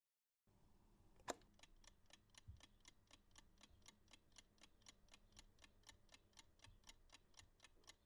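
Mechanical analog chess clock ticking faintly and steadily, about four ticks a second, with one sharper click just over a second in.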